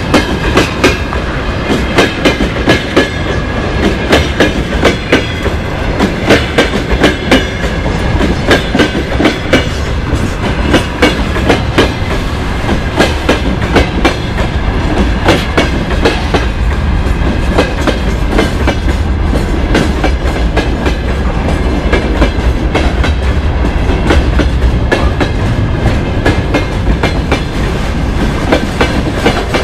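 Freight wagons rolling past close by, their wheels clattering over the rail joints in a fast, continuous run of clicks over a steady rumble. The rumble grows heavier in the second half.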